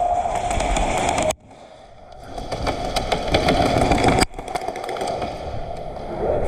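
Airsoft guns firing during a game: many sharp irregular pops over a steady noisy bed. The sound drops out abruptly about a second in and changes again suddenly a few seconds later.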